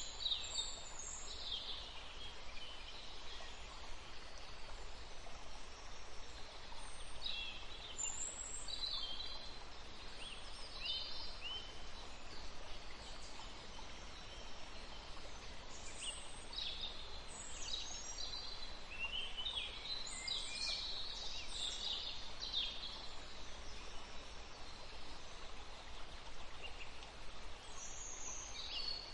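Nature ambience: short, high chirping bird calls in scattered clusters over a steady soft hiss.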